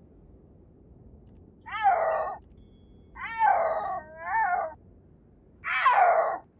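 Snow leopard yowling: four calls, each under a second long, with a pitch that bends down and back up.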